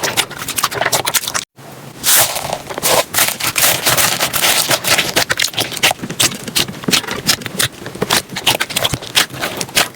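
Slime being squeezed and pressed by hands, giving a dense run of sticky clicks, crackles and pops. It breaks off for a moment about a second and a half in, then carries on.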